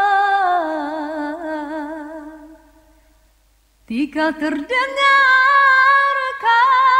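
A woman singing a slow Malay-language melody. She holds a long wavering note that slides downward and fades away. After a short pause she comes back in about four seconds in on a higher, sustained note.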